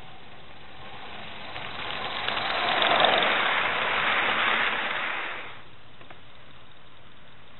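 Gauge 1 live steam locomotive and its train running past close by, a hiss of steam exhaust and wheels on the track that swells to its loudest about three seconds in, then cuts off about five and a half seconds in.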